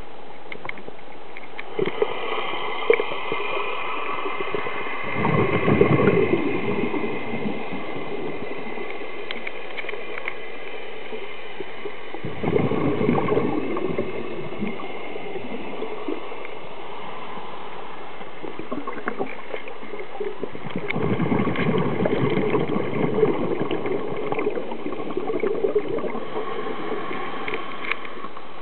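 Water heard through an underwater camera: a steady muffled wash with scattered faint clicks. It swells into louder, lower water surges three times, about five seconds in, about twelve seconds in, and for several seconds after about twenty-one seconds.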